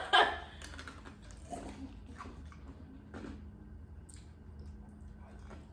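Faint chewing and mouth noises from someone eating fried chicken: scattered soft clicks and smacks over a low, steady hum.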